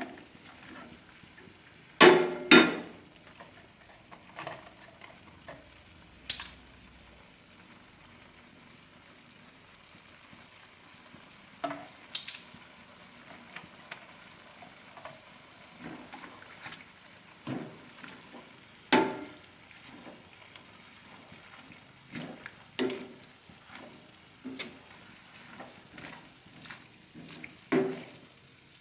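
Stir-frying: a faint steady sizzle with a spatula scraping and knocking against the pan at irregular moments. The loudest are two sharp knocks about two seconds in.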